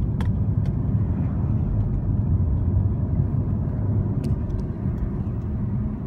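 Steady low rumble of a car's road and engine noise heard inside the cabin while driving on a highway, with a few faint ticks.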